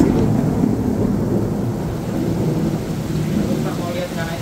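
Heavy rain falling, with a steady low rumbling noise.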